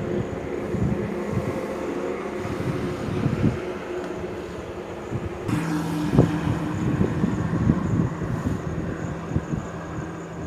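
Truck engines running on the road in a steady drone over road noise. The engine note changes to a lower pitch about five and a half seconds in, with a sharp knock just after.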